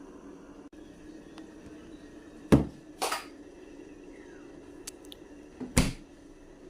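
Kitchenware being handled during tea preparation: a clunk a little over two seconds in, a second knock half a second later, and a third near the end, over a faint steady hum.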